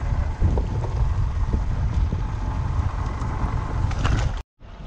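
Steady low rumble of a small fishing boat at sea, its motor and wind on the microphone, with a few light knocks in the first second or two. The sound drops out abruptly near the end.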